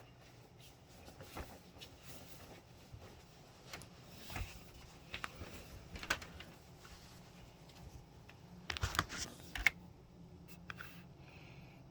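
Scattered soft clicks and knocks of a person moving quietly and handling things at a computer, with a cluster of louder knocks about nine seconds in, over a faint steady low hum.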